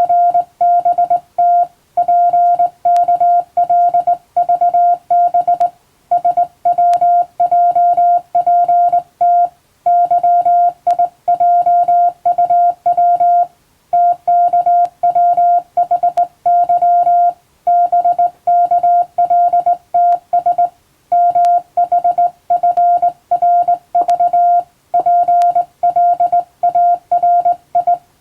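Morse code at about 16 words per minute: a steady tone of about 700 Hz keyed on and off in dots and dashes. The letters come in groups, with a short pause about every four seconds.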